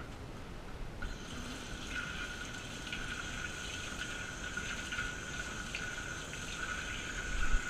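Water running from a kitchen tap into a stainless steel sink over hands being washed. It starts about a second in and then runs steadily, with a faint whistle from the tap.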